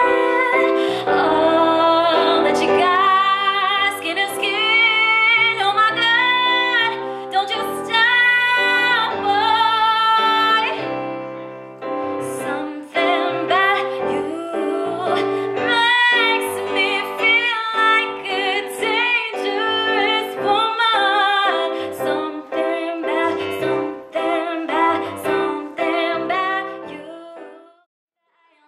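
A woman singing live into a microphone over a sustained instrumental accompaniment, holding long notes that waver and slide in pitch. The music fades out to silence near the end.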